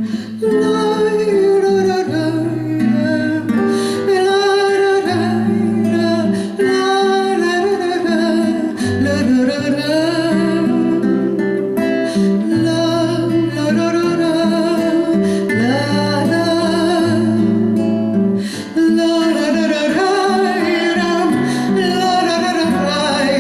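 Instrumental break in a song: acoustic guitar playing, with a held melody line over sustained low notes.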